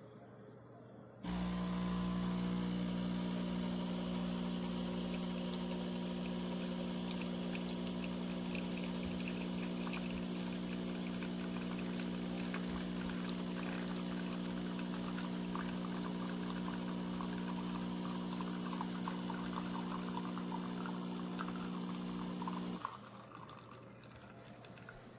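De'Longhi Dedica Duo espresso machine's pump running with a steady hum while liquid trickles and pours, as when a shot is pulled. The hum starts about a second in and cuts off sharply near the end.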